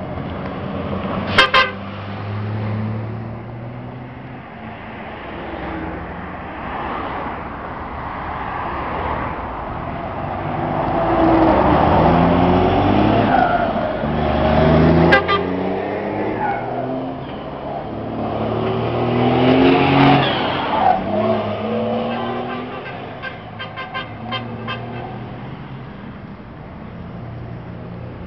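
Flatbed truck's diesel engine pulling away and passing close, its pitch rising in several steps as it accelerates through the gears. A short double horn toot sounds about a second and a half in.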